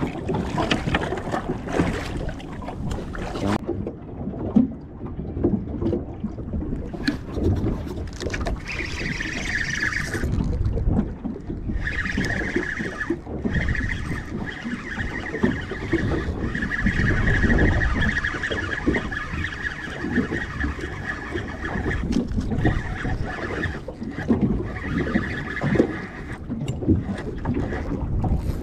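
Wind buffeting the microphone over water slapping against a small fishing boat's hull. About nine seconds in, a steady high whine comes in and holds, with a few short breaks, to near the end.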